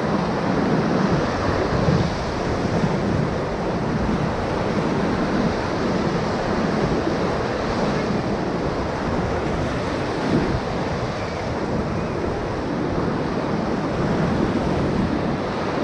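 River whitewater rushing and splashing around a raft, a steady, even rush of water with no let-up.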